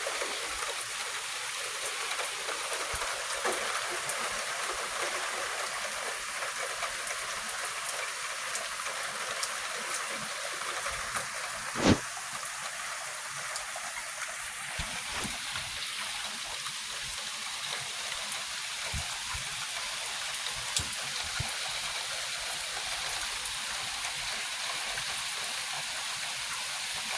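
Steady hiss of rain falling, with faint scattered drips and one sharp click near the middle.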